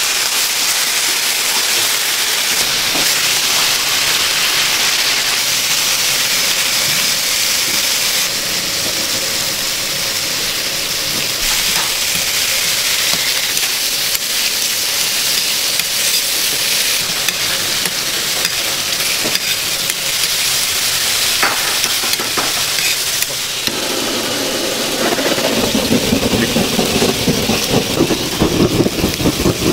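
Egg batter sizzling on a hot griddle for egg-roll kimbap, a steady hiss. Near the end, a fast rhythmic beating joins in and grows louder.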